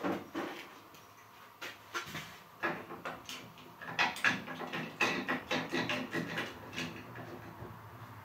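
Irregular clicks, knocks and rattles of a pole chainsaw's head being handled and fitted together by hand, with a run of quick small clicks about halfway through.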